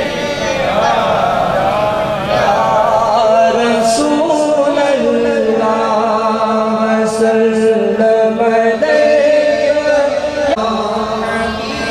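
A naat chanted in a male voice, a devotional poem in praise of the Prophet, with long held notes through the middle.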